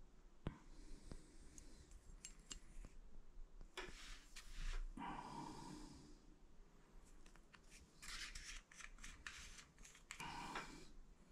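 Quiet handling noises as a tube of brake anti-squeal paste is taken out of its card-and-plastic packaging: a sharp click about half a second in, then short bouts of rustling and quick clicks.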